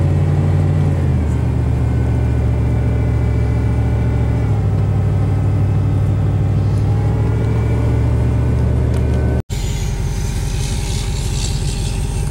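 Truck engine and road noise heard from inside the cab while driving: a steady low drone whose pitch steps a couple of times. It breaks off for an instant about nine and a half seconds in and comes back with more high hiss.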